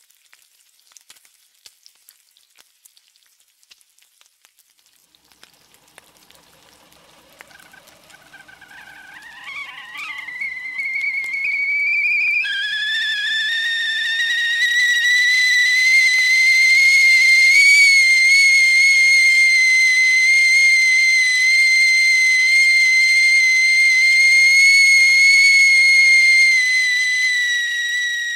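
Faint sizzling from a frying pan, then a stovetop kettle begins to whistle about six seconds in: a wavering tone that climbs in pitch, jumps up about halfway through into a loud, steady high whistle at the boil, and fades out near the end.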